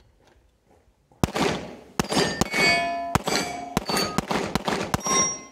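A rapid string of handgun shots fired at steel targets, starting about a second in, with the struck steel plates ringing at several different pitches after the hits.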